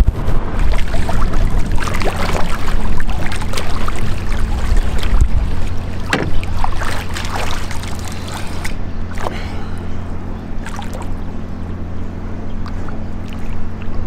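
A boat's engine idling with a steady low hum, while water splashes and slaps around a swimmer working the anchor chain beside the hull. The splashing is busy for the first nine seconds or so, then thins out.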